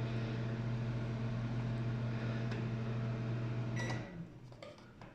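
LG microwave oven running with its steady, low electrical hum, the sound it had lost before its door interlock switch was replaced: the oven is now heating again. The hum stops about four seconds in with a click and a short high beep.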